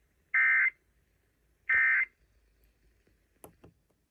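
Emergency Alert System end-of-message (EOM) data bursts, the second and third of three, closing a Required Monthly Test: two short buzzy digital squawks about a third of a second each, about 1.4 s apart. A couple of faint clicks follow near the end.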